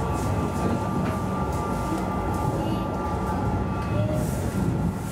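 Alstom Citadis tram running along the track, heard from inside the driver's cab: a steady low rumble of the running gear with a steady high whine over it.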